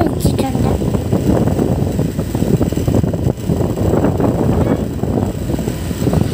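Wind buffeting the microphone, a loud, irregular low rumble.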